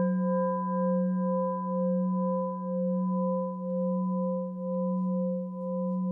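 Singing bowl ringing on after a single strike: a low steady hum with higher tones above it. The middle tone wavers in a slow pulse about twice a second. It marks the start of a period of kept silence in the service.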